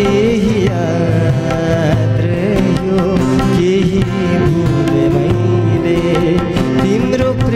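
Nepali ghazal played live: a harmonium holding steady chords and a tabla keeping a running beat, with a man singing a wavering melody over them.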